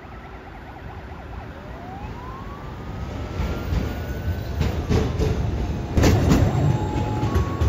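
Emergency vehicle sirens from an approaching column of fire engines. A slow rising wail comes first, then near the end a two-tone hi-lo siren alternates about twice a second, over traffic rumble that grows louder as vehicles pass.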